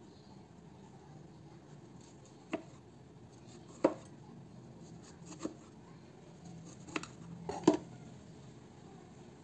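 Kitchen knife slicing strawberries on a plastic cutting board: about six sharp taps of the blade against the board, spaced irregularly, the loudest near the end.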